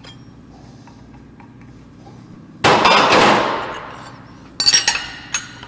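Steel clanks from a manual tubing bender and its DOM steel tube as it is worked. One loud clang about two and a half seconds in rings and dies away over about a second, and a quick run of lighter metallic clinks follows near the end.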